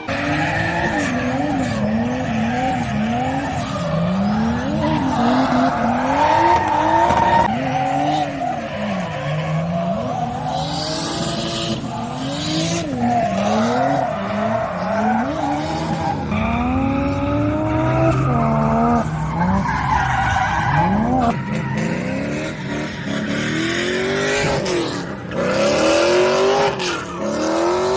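Drift cars' engines revving hard, the pitch climbing and dropping every second or two as the throttle is worked, with tires squealing and skidding through the slides.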